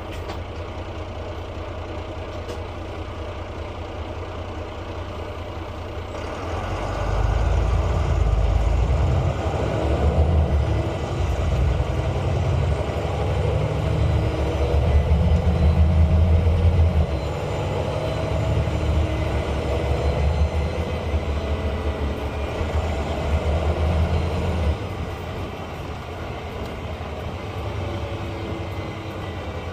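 Volvo B9 bus's diesel engine running under way: the low engine note builds about seven seconds in and stays strong with rising pitch as it pulls, eases off after about seventeen seconds, then drops back to a lighter run near the end.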